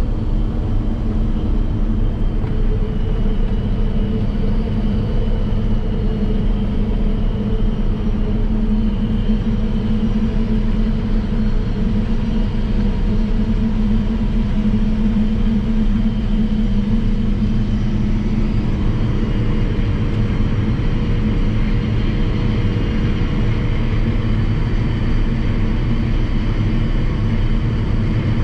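Diesel engine of a heavy farm vehicle running steadily under way, with a constant low drone; its tone shifts a little about two-thirds of the way through.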